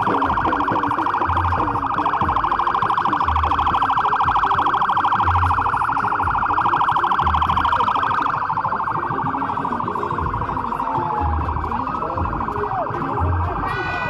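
Police motorcycle escort's siren sounding with a rapid warble, strongest for the first eight seconds or so and then weaker. A low thump repeats about every two seconds underneath.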